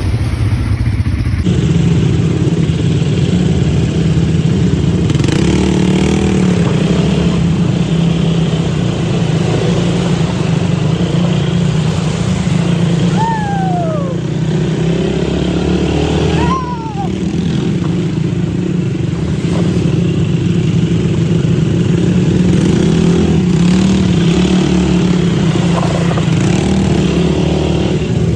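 ATV engine running steadily under way. Two brief falling calls come through about three seconds apart near the middle.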